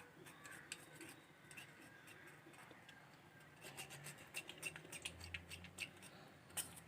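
Faint, irregular clicks and scraping as tamarind pulp is worked and pressed through a kitchen sieve, growing busier about halfway through.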